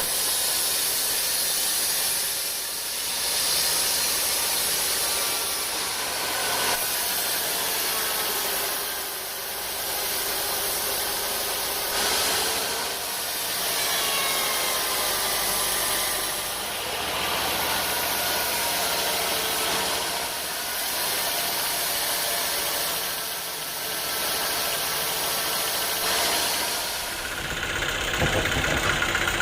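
Sawmill machinery running, with a dense saw hiss that swells and fades about every three seconds. Near the end a lower, steady engine-like drone takes over.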